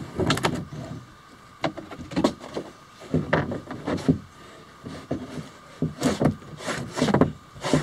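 A cured fiberglass kayak shell being pried off its waxed mold with a wooden stick: irregular cracks and creaks as the layup pulls loose from the mold.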